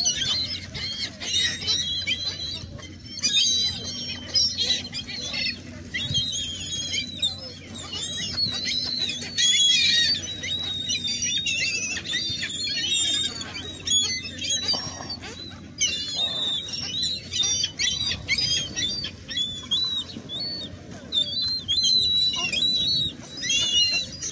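A flock of seagulls calling constantly, many short high cries overlapping one another.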